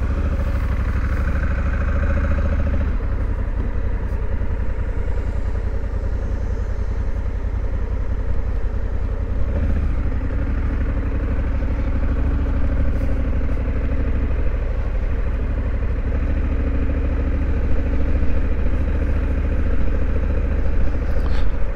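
Honda Africa Twin CRF1100's 1084 cc parallel-twin engine running steadily at low speed as the motorcycle turns around and rides slowly along a dirt road.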